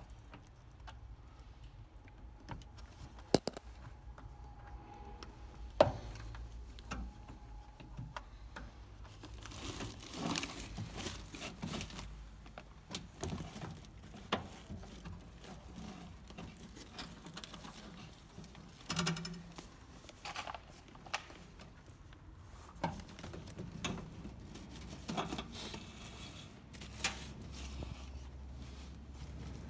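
Handling noises of a wiring loom being fed through a car door's grommet and inner panel: intermittent rustling and scraping, with two sharp knocks about three and six seconds in.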